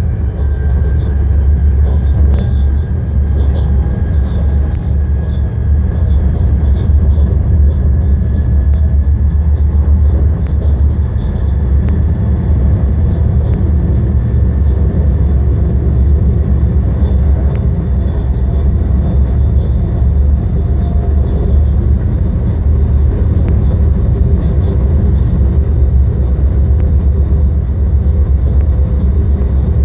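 Steady running rumble heard inside the cab of a DB Class 185 (Bombardier TRAXX) electric locomotive travelling along the line, with faint high steady tones and scattered light ticks over it.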